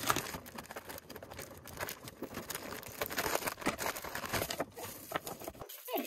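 Plastic packaging crinkling and many small wooden and wicker parrot chew-toy pieces clicking and clattering as a bag of toys is opened and emptied onto a table.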